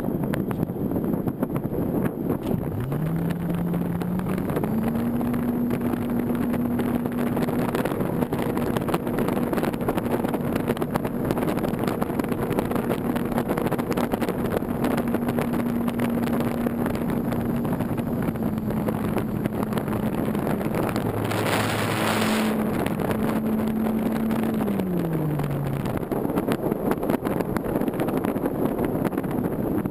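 Wind rushing over a GoPro mounted on a Parkzone Radian Pro electric powered glider, with the motor and propeller humming in a steady tone. The motor spools up in two steps a few seconds in, holds, and winds down near the end; a brief louder rush of air comes about two thirds through.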